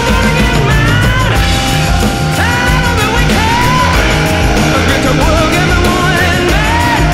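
Rock music with a singing voice over a steady drum and bass beat.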